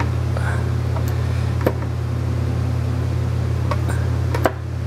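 Steady low mechanical hum, like a shop fan or motor, with a few light metallic clicks from handling the end-play tool and dial indicator.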